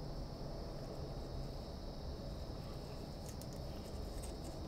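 Quiet background of steady low hum and a constant high-pitched drone, with a few faint light clicks about three and a half and four and a half seconds in as small metal parts, a brake-line washer and banjo bolt, are handled.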